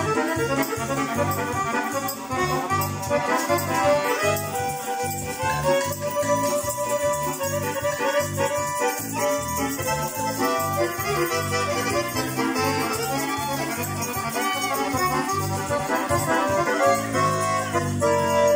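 Accordion-led Russian folk dance music with a steady, bouncing beat.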